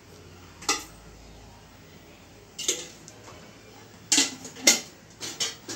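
A metal spoon clinking and knocking against an aluminium pressure-cooker pot as spoonfuls of oil go in: about six short, sharp clinks with quiet between them, the loudest pair about four and a half seconds in.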